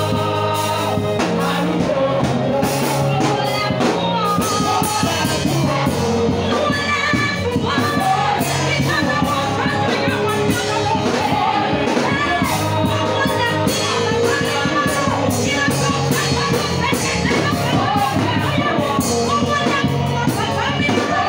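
A woman singing gospel worship into a microphone through a PA, over amplified band accompaniment with sustained low bass notes.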